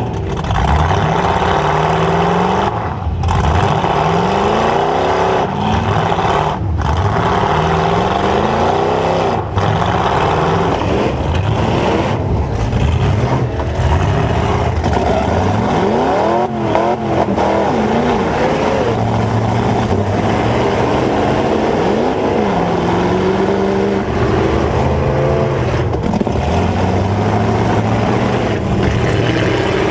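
Dodge Ram pickup's V8 running through open exhaust stacks, revving up and down again and again as the truck is driven, heard from inside the cab.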